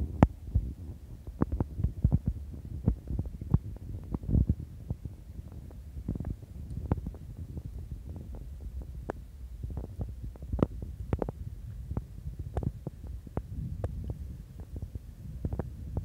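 Low rumble of wind buffeting a phone microphone, with irregular knocks and clicks of handling noise as the phone is carried along on a walk.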